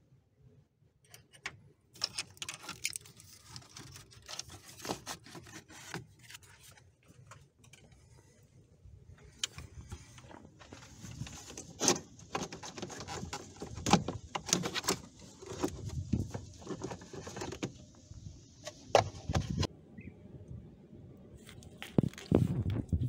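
Hard plastic clicking, scraping and knocking as a BMW X5 E53's cabin air filter housing is worked loose, lifted out of the cowl and handled, with irregular sharp knocks throughout.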